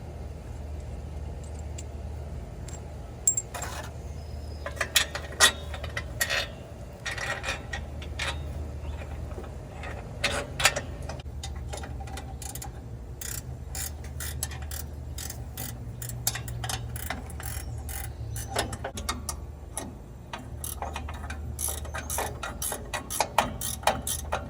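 Hand ratchet wrench clicking in short runs as suspension bolts are tightened, the clicks coming faster and denser in the second half. A steady low hum sits underneath.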